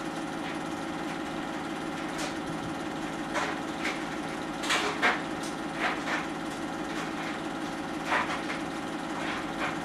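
Home-movie film projector running: a steady mechanical whir with the rapid clatter of the film advance, and a few sharper clicks now and then.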